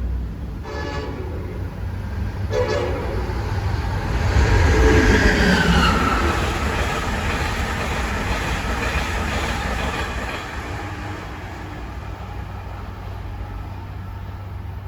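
Passenger train on the Northeast Corridor sounding two short horn blasts, then passing at speed. It is loudest about five seconds in, with a falling whine as it goes by, and then fades away.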